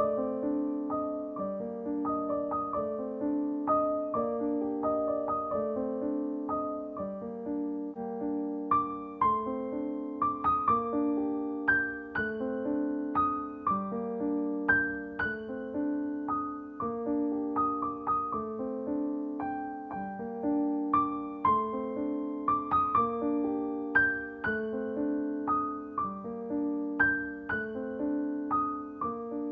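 Background music: a gentle piano piece, with a repeating low accompaniment under a melody of single struck notes.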